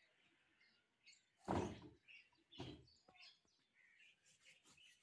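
A wooden frame is shifted on the bare ground: a scrape about a second and a half in, then a shorter knock about a second later. Faint bird chirps sound throughout.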